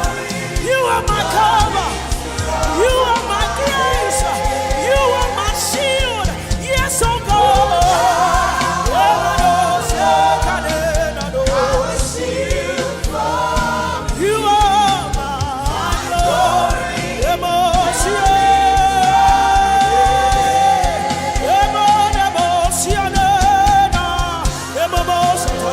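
Gospel worship song: voices singing a wavering melody over instrumental accompaniment with a steady low bass, one note held for about three seconds past the middle.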